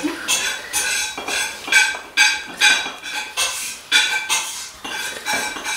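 Repeated clinking and clattering of hard objects, several short knocks a second, each with a brief metallic ring.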